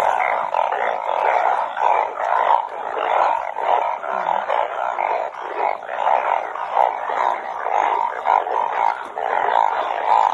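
Dense chorus of many banded bullfrogs calling at once, their croaks overlapping steadily with no break.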